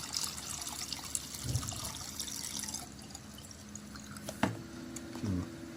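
Water from a small electric pump pouring and splashing, stopping about three seconds in. A sharp click follows, then a faint steady hum.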